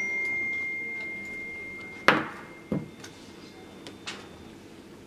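A smartphone alert chime: one high, steady tone that rings out and slowly fades for about two seconds. A sharp knock cuts it off, then comes a duller knock and, a little later, a lighter click.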